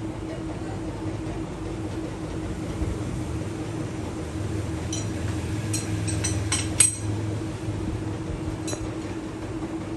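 Lathe motor running with a steady hum, and a handful of sharp metal clinks, the loudest about seven seconds in.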